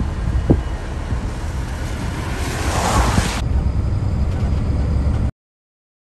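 Low, steady rumble of EMD diesel locomotives with wind noise on the microphone. A rushing hiss swells in the middle and cuts off abruptly. The sound stops dead about a second before the end.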